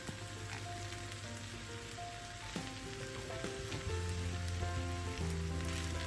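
Fried rice sizzling in a hot frying pan while a spatula stirs and turns it, with scattered scrapes and clicks against the pan. Soft background ballad music with sustained notes and a low bass plays underneath.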